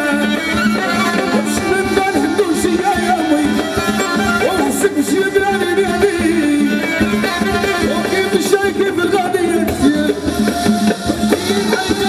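Live band playing Moroccan folk-style music through a PA: a wavering, ornamented melody over keyboard, electric guitar and drums, with a steady beat.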